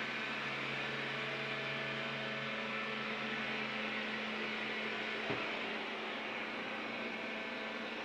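Xiaomi Mi Robot Vacuum running in spot-cleaning mode: a steady whir of its suction fan and brushes, with one small click a little after five seconds.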